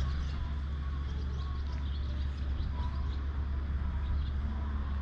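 Steady low rumble of a Honda CRF250L's single-cylinder engine mixed with wind on the microphone, with a few short bird chirps about halfway through.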